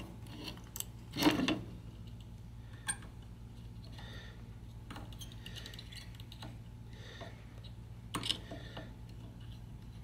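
Light clicks and knocks of a circuit board and soldering iron being handled on a wooden bench while a capacitor lead is soldered, loudest about a second in and again near the end, over a steady low hum.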